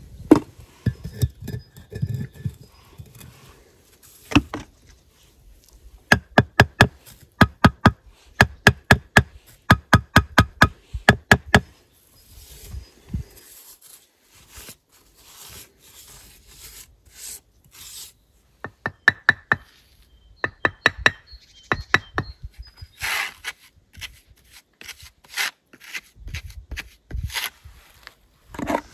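Bricklayer's trowel tapping red bricks down into their mortar bed: runs of sharp, ringing taps, about two or three a second, twice. In between there is softer scraping and rubbing of mortar and brick.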